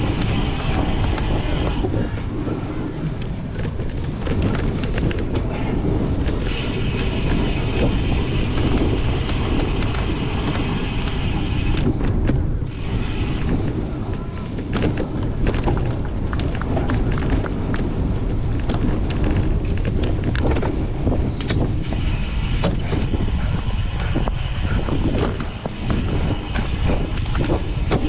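A cyclocross bike being raced over rough ground: a steady rush of wind and tyre noise, with constant rattles and clicks from the bike.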